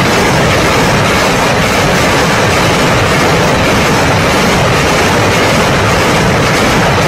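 BM-21 Grad multiple rocket launchers firing a salvo: launches follow each other so fast that they merge into one loud, continuous rushing noise with no gaps.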